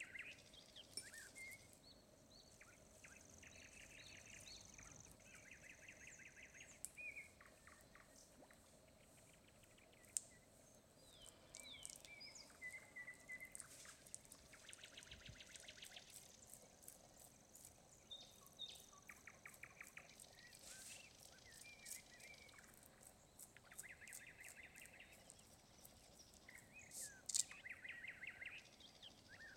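Faint birdsong: repeated chirps and short trills over a steady high faint hiss, with a couple of sharp clicks, one about ten seconds in and one near the end.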